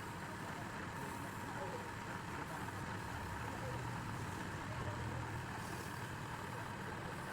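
Wood lathe running with a steady mechanical hum and a low drone.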